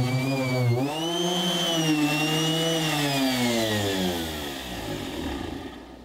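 Ridgid random orbital sander running on epoxy primer over a fiberglass hull, its motor whine dipping in pitch about a second in as it is pressed into the work. Near the end the pitch falls and the sound fades as the sander winds down.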